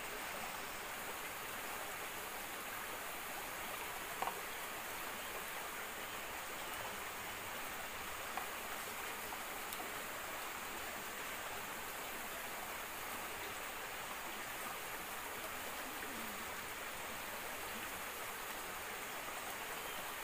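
Steady rush of a forest stream running, with a couple of faint clicks about four and eight seconds in.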